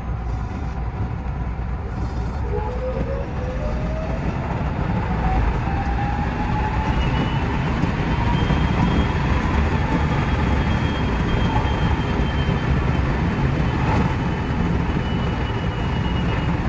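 JR West 207 series GTO-VVVF inverter and traction motors whining as the train accelerates, the pitch rising for several seconds, holding steady, then easing slightly near the end. Under it is steady wheel-on-rail running noise, heard from inside the driver's cab.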